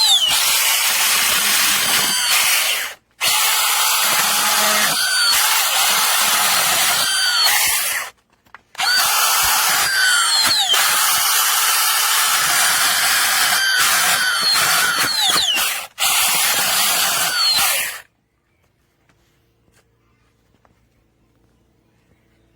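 A cordless electric mini chainsaw cuts wood with its motor running at full speed. The sound breaks off briefly three times and then stops about three-quarters of the way through.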